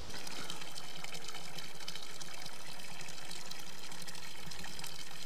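Running water: a steady, even rush that starts abruptly at the very beginning.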